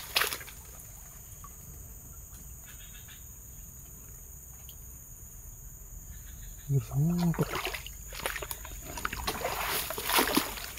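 Steady high buzz of insects over a quiet forest background. A man's voice comes in briefly about two-thirds of the way through, then leaves and stems rustle and crackle as someone pushes through dense undergrowth.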